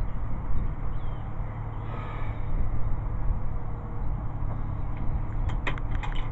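Steady low rumble of wind on the microphone, with a few faint bird chirps. In the last second comes a quick run of sharp metallic clicks as the scoped Savage Axis bolt-action rifle is handled.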